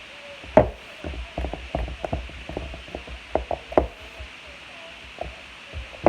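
Irregular light knocks and taps of plastic cups, bowls and utensils being handled on a table while making slime, the loudest about half a second in.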